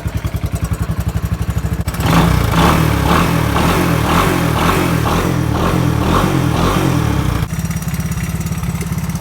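Honda ATC three-wheeler's single-cylinder engine running just after start-up: a steady idle, then louder and rougher for about five seconds from two seconds in, settling back to idle near the end.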